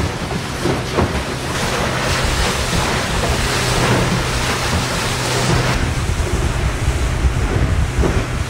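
Small motorboat running across open water: a steady low engine hum under wind buffeting the microphone and the hiss of water along the hull.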